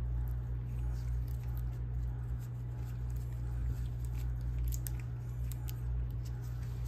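Faint ticks and rustles of gloved hands handling a clip and wires on a Peltier plate, over a steady low hum.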